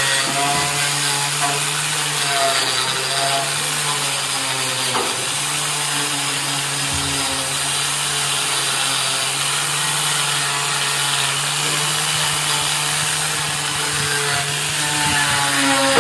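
Handheld power grinder running steadily against the rusty steel frame of a tricycle sidecar, scouring off rust with a continuous hiss over the motor's hum.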